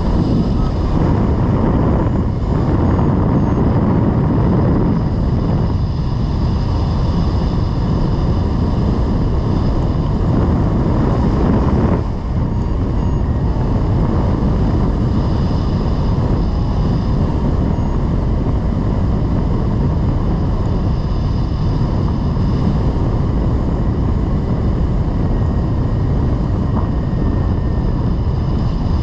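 Steady rush of airflow buffeting the microphone of a camera mounted on a rigid-wing hang glider in flight, heaviest in the low end, with a brief dip about twelve seconds in.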